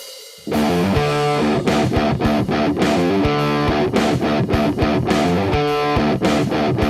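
Electric guitar played through a Mesa Boogie Dual Rectifier amp head and cabinet. After a faint fading ring, a riff of quick picked notes and chords starts about half a second in.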